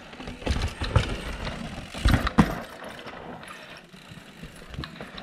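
Downhill mountain bike riding past on a loose dirt and rock trail: tyres crunching and skidding over dirt, with several clattering knocks from the bike, the loudest a pair about two seconds in.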